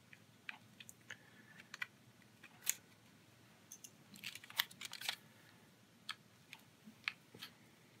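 Faint, irregular small clicks and taps of a small screwdriver backing the mounting screws out of a 2.5-inch Hitachi Travelstar laptop hard drive, with the metal drive being handled and turned over in the hand.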